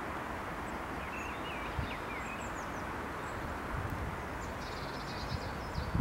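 Steady outdoor background hiss with faint small-bird chirps about a second in and a short, fast bird trill near the end.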